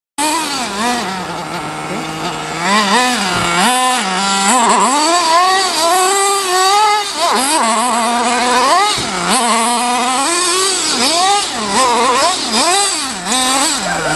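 Small two-stroke nitro engine of a Reely Air Attack 1:8 RC buggy, repeatedly revving up and dropping back to idle as the buggy is driven. It settles to a steady idle near the end.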